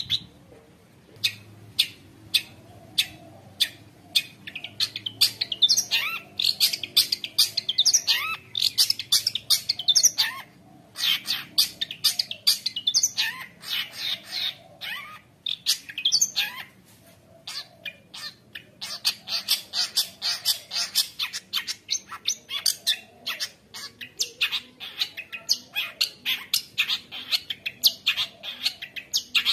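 Long-tailed shrike (cendet) singing in a rapid, nonstop chatter of short harsh notes and squawks, with a few rising whistles, broken by brief pauses. It is the frantic full song that keepers call gacor, rich in phrases mimicked from other birds.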